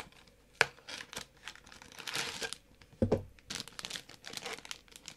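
Plastic snack packaging crinkling and rustling in irregular crackles as it is handled.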